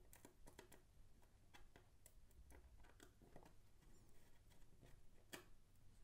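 Faint, irregular small clicks and taps as the aluminium bottom cover of a Lenovo Yoga C740 laptop is handled and its small screws are picked up and driven back in with a screwdriver, with one sharper tap near the end.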